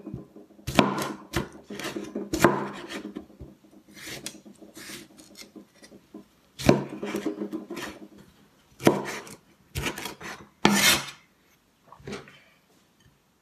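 Chinese cleaver cutting ripe tomatoes into chunks on a wooden cutting board: irregular knocks of the blade through the fruit onto the wood, with scraping of the blade on the board, thinning out near the end.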